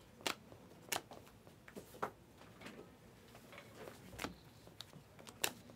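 Panini Mosaic chrome trading cards being flipped through by hand, giving a few sharp, irregular clicks and slides about a second or so apart as cards are moved through the stack.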